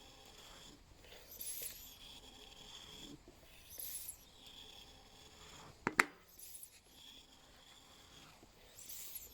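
Hand floor pump inflating a tubeless mountain-bike tire, a short hiss of air with each stroke about every two and a half seconds. A single sharp snap about six seconds in is the loudest sound.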